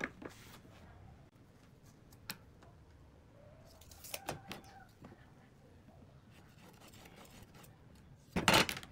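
Light handling sounds of a metal carpenter's square and pen on pine boards on a wooden workbench: a few faint taps and clicks, then near the end a louder scrape lasting about half a second.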